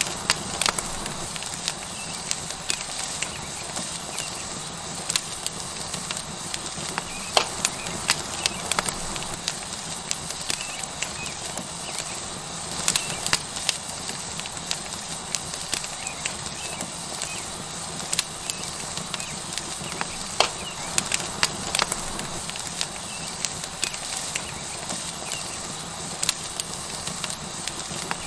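Wood fire crackling with sharp, irregular pops over a steady sizzle from a tomahawk steak searing on a hot rock.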